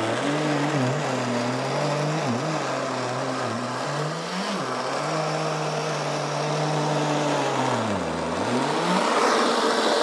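Creatulize X1 bed vacuum running in manual mode as it is pushed by hand across a pillow: a steady motor hum over the rush of suction. Its pitch dips briefly several times, most deeply about eight seconds in.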